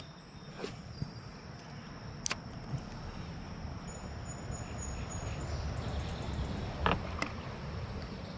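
Outdoor creek ambience: a steady low rumble with a thin, high, steady insect trill over it, and a few light knocks scattered through, two of them close together near the end.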